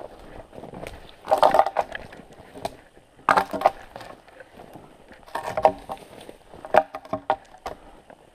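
Crunching steps in snow, four heavy ones about a second and a half to two seconds apart.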